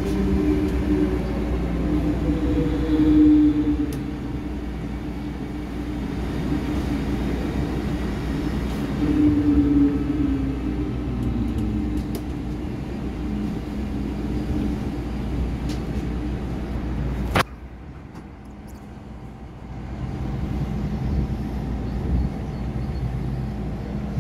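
Interior running noise of an MTR M-Train electric multiple unit: a steady rumble with a motor whine that slides down in pitch twice. About seventeen seconds in a sharp click is heard and the noise drops suddenly, building up again a few seconds later.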